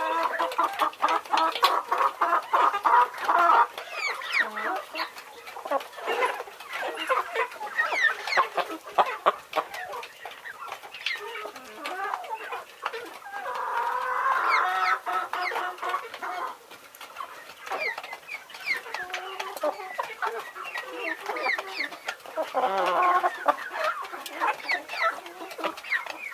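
Chickens clucking, with many short calls and three longer, louder bouts of calling: at the start, midway and near the end.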